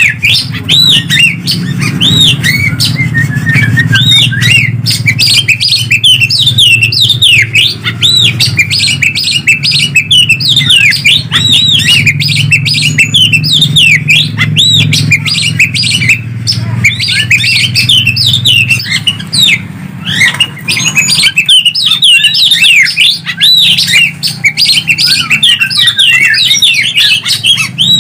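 Greater green leafbird (cucak ijo) and oriental magpie-robin (kacer) singing back and forth in a dense, rapid, unbroken stream of chirps, whistles and harsh squawky notes. A low hum runs underneath and fades out about twenty seconds in.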